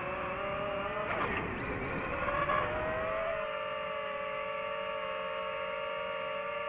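Quadcopter drone's motors and propellers running in a steady whine made of several close tones, heard from the aircraft itself. The pitch wavers and dips about a second in, then rises and settles as the drone adjusts its hover.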